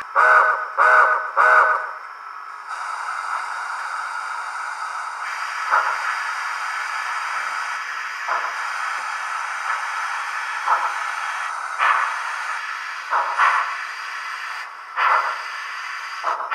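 Sound from a Soundtraxx Tsunami2 decoder's speaker in an HO-scale brass Southern Pacific steam locomotive: three short whistle toots, then a steady steam hiss broken by louder single puffs every second or two as the locomotive creeps ahead.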